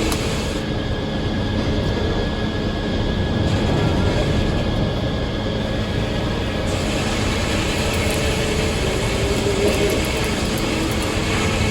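Circular sawmill machinery running: a steady, loud mechanical drone with a constant hum.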